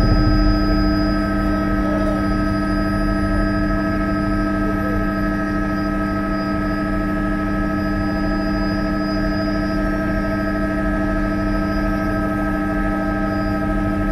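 Bell 206B JetRanger III helicopter in cruise, heard from inside the cabin: the steady whine of its Allison 250 turboshaft, with several held tones, over the low drone of the rotor and airframe.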